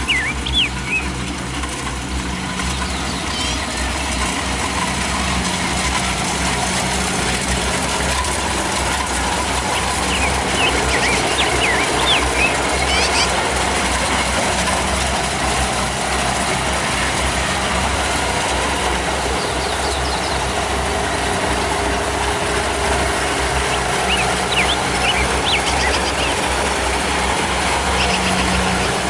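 Kubota DC-70 Plus combine harvester's diesel engine running steadily under load.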